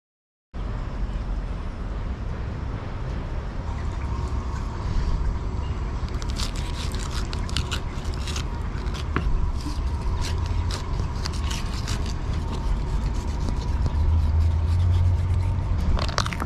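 Knife cutting through a wahoo's head and gills on a plastic fillet table: repeated short scraping and crunching strokes, thickest in the middle, over a steady low rumble.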